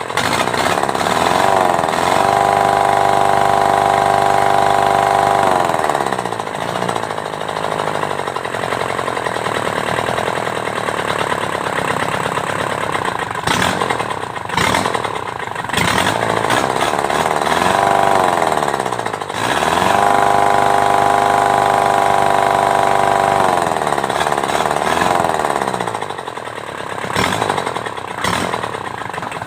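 Kubota V1501 four-cylinder diesel engine running. It is revved up twice and held for about four seconds each time, about two seconds in and again about twenty seconds in, dropping back to a lower speed in between.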